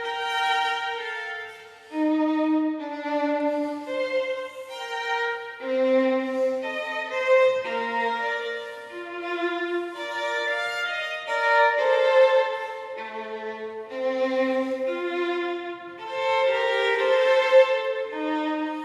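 Background instrumental music: a violin playing a slow melody of held notes.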